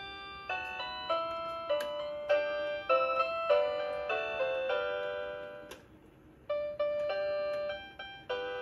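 Santa-themed toy carousel playing its built-in tune: tinny electronic keyboard-like notes, each struck sharply and fading, in a melody with chords, with a short pause about six seconds in.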